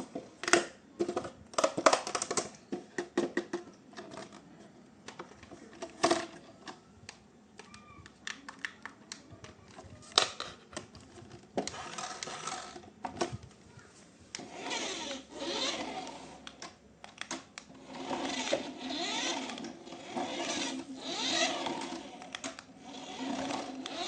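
Scattered clicks and knocks, then, from about halfway through, a small toy electric motor whirring in uneven swells.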